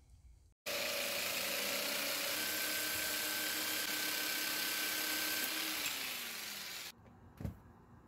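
Corded jigsaw cutting through a strip of G-10 fiberglass laminate. It starts suddenly a little under a second in and runs steadily for about six seconds, then its pitch drops slightly just before it stops. A single short knock follows.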